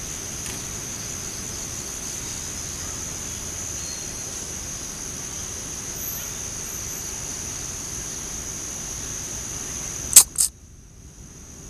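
A steady, high-pitched drone of insects, with two sharp clicks close together near the end, after which the drone nearly cuts out.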